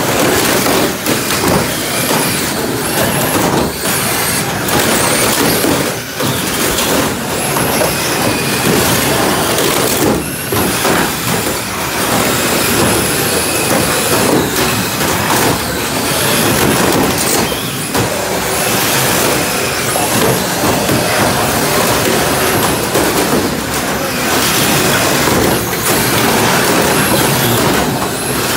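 Several RC cars driving and crashing on an OSB plywood floor: a steady din of motors running and wheels scrubbing the boards, broken up by repeated knocks as the plastic bodies ram each other.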